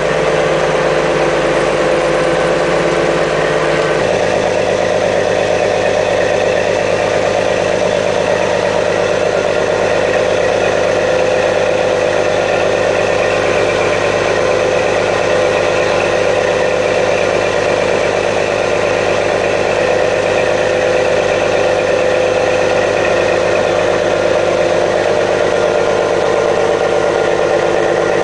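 Fishing vessel's engines and fish-pumping machinery running steadily: a loud, constant drone with several steady tones, which shifts lower about four seconds in.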